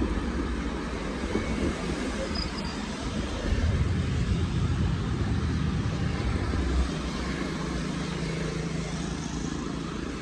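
Street traffic: motorbikes and cars running past as a steady rumble, louder for a few seconds in the middle as a bunch of vehicles goes by, then settling to a steady hum.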